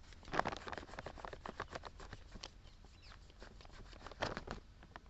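An old toothbrush dipped in petrol scrubbing carbon deposits off the magnet core of a motor starter's contactor, making a quick run of short, scratchy brushing strokes. The strokes are loudest about half a second in and again about four seconds in.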